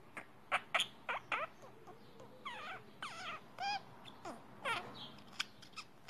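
Budgerigars chirping: an irregular series of about a dozen short, high chirps and squeaks, several sliding down in pitch.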